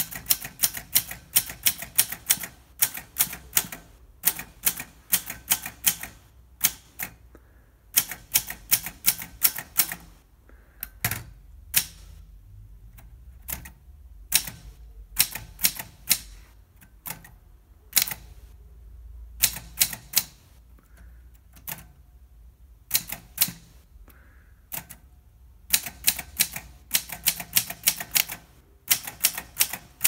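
Olympia SM2 portable manual typewriter being typed on one key at a time. Sharp typebar strikes come in quick runs of several keystrokes, separated by pauses of a second or more.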